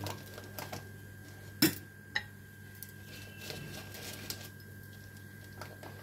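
A few sharp knocks and clicks on a hot iron tawa as a piece of butter is put on it, the loudest about a second and a half in and another half a second later, with smaller ticks after.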